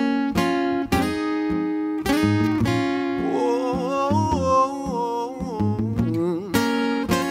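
Solo acoustic guitar: full chords strummed and left to ring, a second or more apart. A wordless sung line wavers over the ringing chords for a few seconds in the middle.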